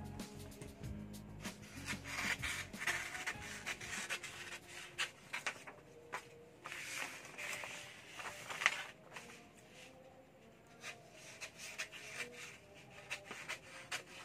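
Large sheets of paper sewing pattern rustling, sliding and crinkling as they are handled and folded, with irregular soft scrapes and small clicks.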